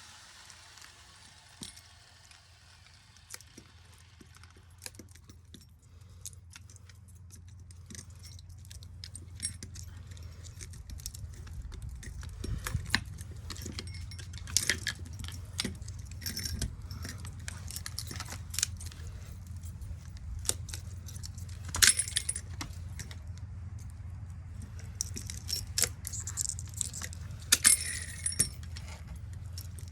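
Irregular metallic clinks and rattles, some ringing, from the copper windings and metal parts of a ceiling fan motor being worked loose and pulled apart by hand. A low steady hum runs beneath and grows stronger after the first several seconds.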